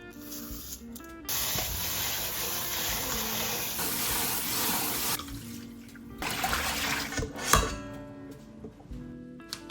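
Water running from a kitchen tap into a sink for about four seconds, then stopping, with a single sharp knock a couple of seconds later. Soft background music plays throughout.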